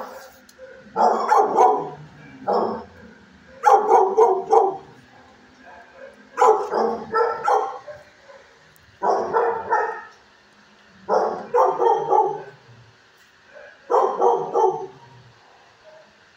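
Dog barking in repeated bursts of several barks each, about seven bursts every two to three seconds.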